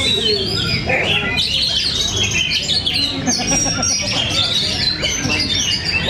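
Several oriental magpie-robins (kacer) singing at once: a dense, continuous chorus of overlapping whistled phrases, trills and chirps.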